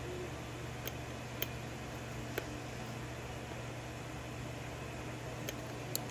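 Lock pick working the pins of a five-pin pin tumbler lock during single-pin picking: a handful of small sharp clicks at irregular intervals, over a steady low hum.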